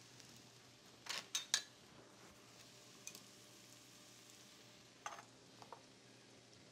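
Metal tongs clinking against a stainless-steel strainer basket and pot while blanching carrots are checked for doneness: a quick cluster of three clinks about a second in, a single clink, then two more a couple of seconds later. A faint steady sizzle from mushrooms sautéing in a pan runs underneath.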